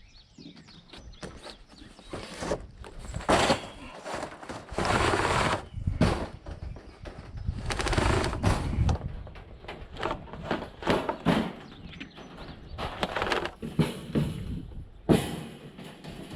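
Wire-mesh rabbit cage being handled and shifted about, giving irregular rattles, clanks and knocks of metal wire, with a few longer scraping and rustling stretches.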